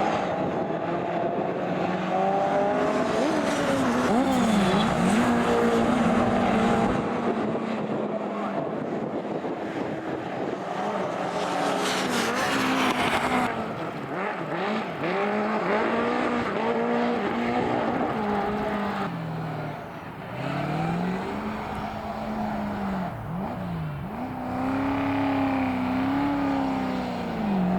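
Classic racing cars' engines at high revs, several at once, their pitch climbing and dropping with gear changes and lifts as the cars pass. About 13 seconds in the sound changes abruptly as the footage cuts to another session.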